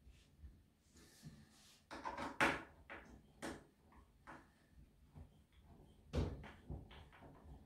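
Irregular plastic knocks and clicks as the starter housing is seated on a Husqvarna chainsaw and fastened down with a hand tool. The loudest knocks come about two and a half seconds in and again about six seconds in.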